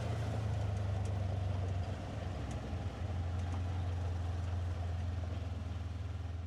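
A vehicle engine running steadily with a low drone, easing off briefly about two seconds in.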